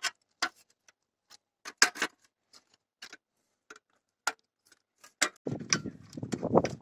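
Thin sheet metal of a homemade brake-disc dust shield being bent and handled, giving scattered sharp metallic clicks and ticks. From about five and a half seconds in there is a denser scraping clatter as the shield is fitted around the brake disc.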